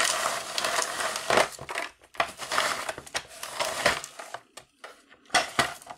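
Plastic toy ice-cream maker's hand crank and scraper grinding and crunching through frozen chocolate ice cream, in uneven bursts with short pauses. The crank turns in fits and starts because its plastic gear keeps slipping out of engagement.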